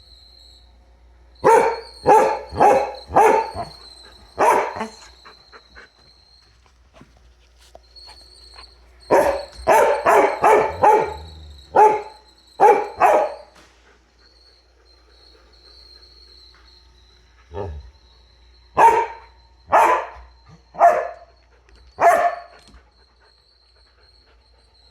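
Dog barking in three bouts of several sharp barks each, with short pauses between the bouts.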